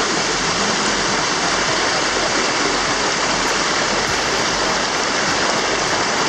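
Hot spring water cascading steadily down a series of small steps in a stream, a constant rushing splash.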